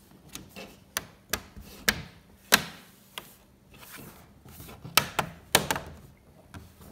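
HP Pavilion laptop's bottom cover being pressed down by hand, its snap-in tabs clicking into place one after another: a string of sharp clicks, several in the first three seconds and another cluster near the end.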